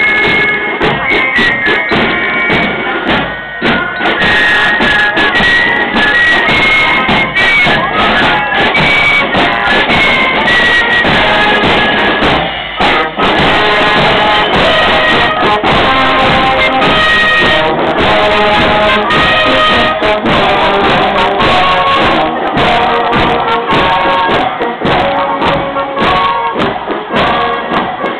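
Marching music from a parade: a drum-and-fife corps plays a march, a high fife melody over snare drums. About halfway through, a brass band with tuba and trombone takes over with a lower melody.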